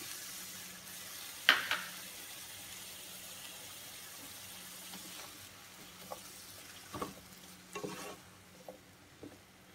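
Broccoli, carrot and green pepper sizzling in a hot frying pan just after soy sauce is added, the sizzle fading toward the end. A sharp clack about a second and a half in is the loudest sound, and a wooden spatula knocks against the pan a few times later as the vegetables are stirred.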